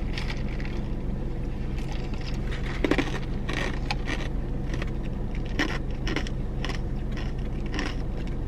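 Ice from a fountain-drink cup being chewed and crunched, with irregular crunches throughout and the loudest about three seconds in. A steady low hum from the car runs underneath.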